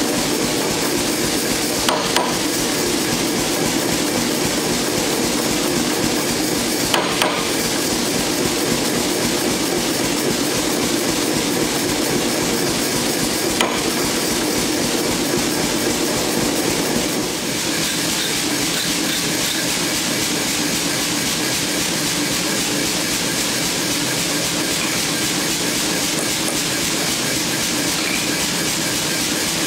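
Steady roar of a gas forge burner, with three sharp metal clinks of steel tools on the anvil in the first half.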